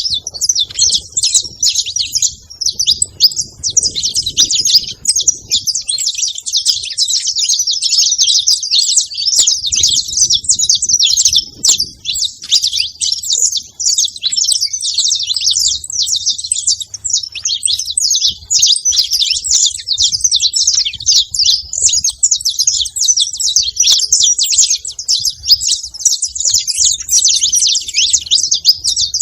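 Saffron finches chirping nonstop, many high chirps overlapping without a break.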